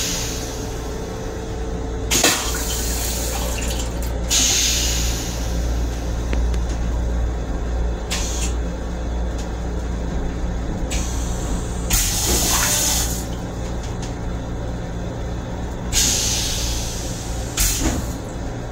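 Flush cycle of a Metro-North M7 railcar toilet with a stainless-steel bowl: about four hissing bursts of rinse water a few seconds apart, with a few sharp clicks, over the railcar's steady low hum.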